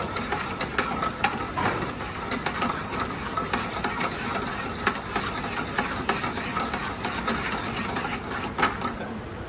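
Brown-butter and white-wine sauce sizzling and crackling in a sauté pan, a steady hiss with frequent small pops, as cold butter is worked in to finish it (monter au beurre).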